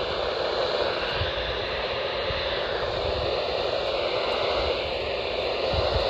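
Steady radio static hiss, thin and band-limited like a weather-radio receiver with no transmission coming through.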